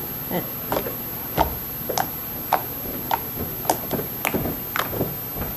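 Homemade PVA-glue slime pressed and poked with the fingers, giving short sticky clicks and pops, about two a second.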